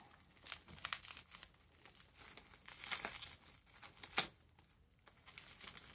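Bubble wrap and packing tape crinkling and tearing as a doll is unwrapped by hand, in irregular crackles. A sharp crackle about four seconds in is the loudest.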